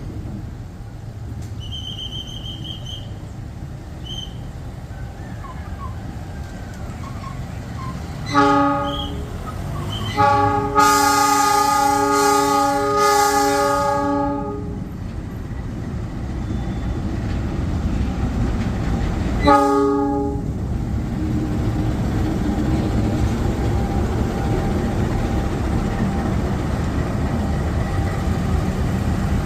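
Air horn of a CC 206 (GE C20EMP) diesel locomotive sounding three blasts: a short one about eight seconds in, a long one of about four seconds starting about ten seconds in, and another short one about twenty seconds in. A steady low rumble runs underneath.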